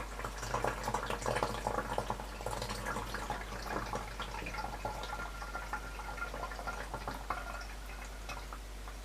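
Water poured from a jug into a countertop dishwasher's built-in water tank, splashing and trickling. The pouring is busiest for the first few seconds, then eases to a quieter trickle.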